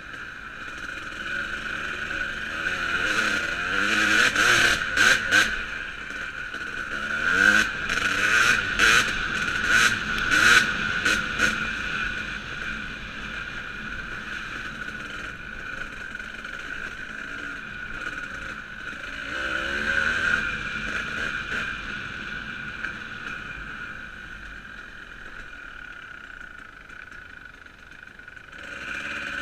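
Dirt bike engine revving up and down while riding a rough dirt trail, loudest from a few seconds in to about twelve seconds in and again around twenty seconds in. A string of sharp rattling knocks comes with the loudest stretch.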